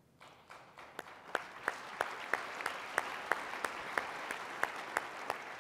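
Audience applauding, starting about half a second in and holding steady. One clapper's sharp claps stand out about three times a second.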